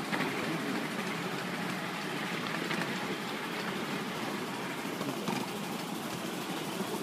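Ride-on miniature railway train running along its track, heard from aboard a passenger car: a steady rumble and rattle of the wheels on the rails, with an occasional faint click.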